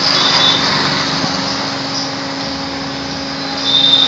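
Street traffic with small motorcycle engines running as riders approach, and a short high-pitched beep near the end as the sound grows louder.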